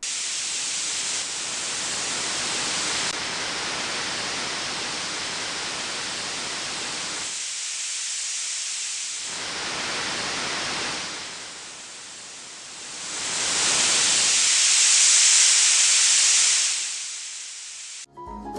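Tinnitus-relief masking noise from the Starkey Relax app: a steady hiss whose tone changes as its frequency response is adjusted. The low end drops out about halfway through and again a little later. Near the end it turns brighter and louder, then cuts off abruptly.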